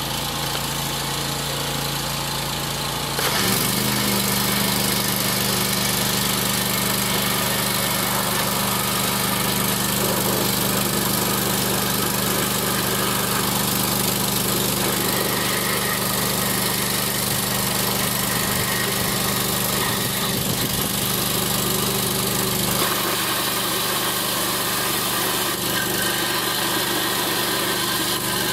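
Engine-driven 350 bar sewer jetter running steadily, its high-pressure water jet hissing through a 1/4-inch sewer nozzle inside a plastic pipe as it shreds a piece of chicken. The sound steps up louder a little over three seconds in.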